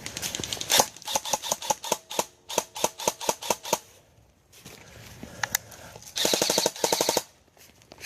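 Automatic airsoft rifle firing: a run of quick shots for about three seconds, a pause, then a short, faster full-auto burst near the end.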